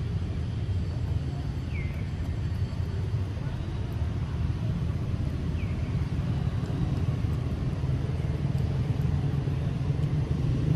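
Steady low engine-like rumble, with two faint short chirps about two and six seconds in.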